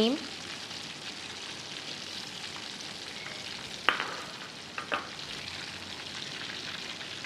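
Oil sizzling steadily as breaded chicken breasts shallow-fry in a pan, while cream sauce is stirred in a small saucepan beside it. Two sharp knocks come about four and five seconds in.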